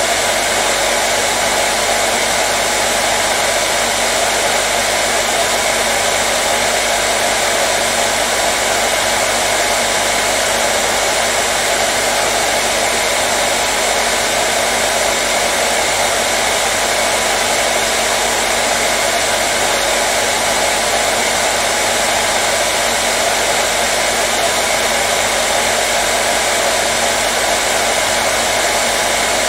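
Electric hairdryer running steadily: a loud, unchanging rush of air with a faint steady hum underneath.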